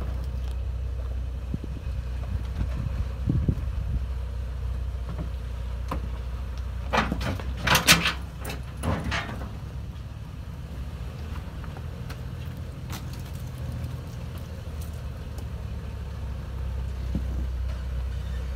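Toyota 4Runner engine running slowly as the vehicle crawls down a rocky trail, a steady low hum. A cluster of sharp knocks comes about seven to nine seconds in.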